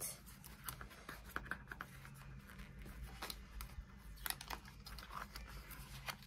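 Faint handling noise of paper notebooks: scattered light clicks, taps and rustles, over a low steady hum.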